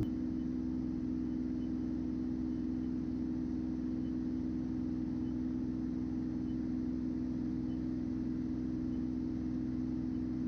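The six-cylinder Continental IO-520 engine and propeller of a 1972 Beechcraft F33A Bonanza running steadily in cruise flight, a constant low hum heard from inside the cabin.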